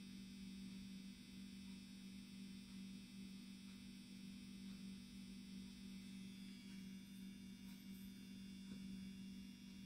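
Near silence with a faint, steady low electrical hum.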